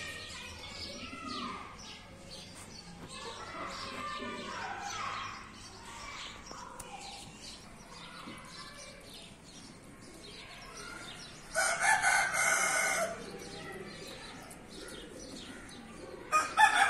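Small birds chirping, with a rooster crowing loudly once about twelve seconds in and a second crow starting right at the end.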